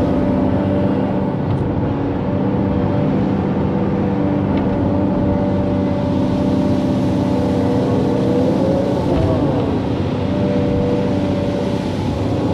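Excavator's diesel engine running steadily under work, its pitch swinging down and up briefly a few times.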